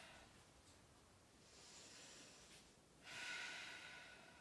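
Faint breathing close to the microphone: a soft breath about a second and a half in, then a louder, longer breath starting about three seconds in.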